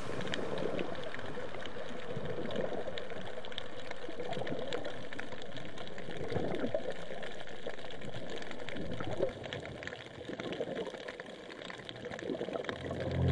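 Underwater water noise with bubbling and gurgling, heard through a submerged camera, which goes quieter about nine seconds in. Background music fades in just before the end.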